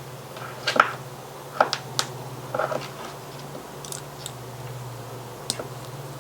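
Scattered light clicks and taps of small screws, a screwdriver and small switches being handled as limit switches are unscrewed from a metal mounting bracket, some in quick pairs, over a steady low hum.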